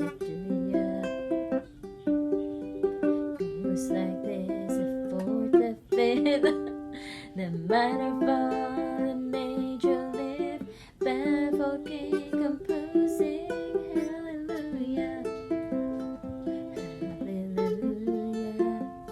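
Tenor ukulele playing a picked melody with chords, the notes following each other quickly.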